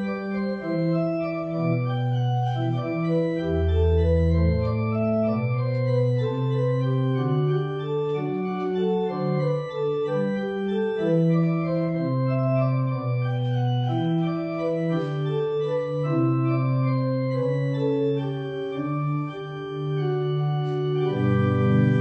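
Church organ playing a slow piece of held chords over a moving bass line, swelling to a fuller chord near the end.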